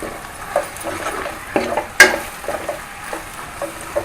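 Stirring in a kadai of onions, spice powders and freshly added ground masala paste frying in oil, with a light sizzle and scraping against the pan. A sharp knock against the pan about halfway through is the loudest sound.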